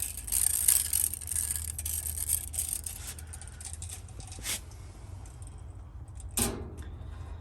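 Scraping, rattling and clicking handling noises, with two sharp knocks about four and a half and six and a half seconds in, over a steady low hum.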